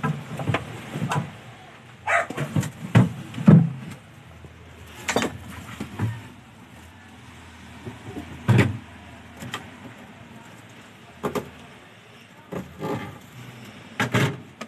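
Refrigerator's plastic drawer and freezer-compartment flap being opened and handled: irregular knocks and clunks every second or so, a few of them in quick clusters.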